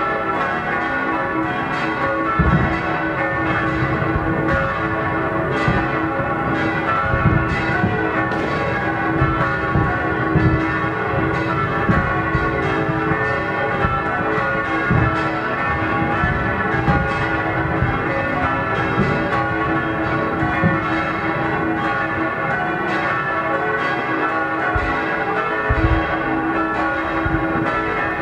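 Church bells pealing steadily for the New Year, several bells overlapping. Over them come frequent firework bangs and crackles, some deep booms and some sharp cracks.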